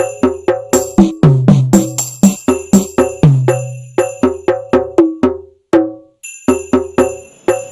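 Percussive music: a quick run of sharp, wood-block-like knocks at several pitches, each with a short ring, broken by a brief pause about three quarters of the way through.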